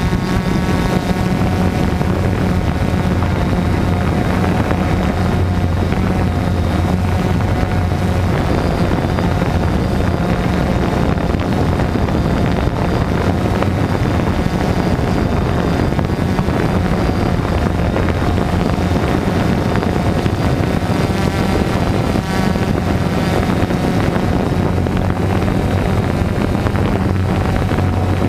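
Multirotor drone's electric motors and propellers buzzing steadily, picked up by the camera mounted on it, with a low hum that swells now and then as it manoeuvres.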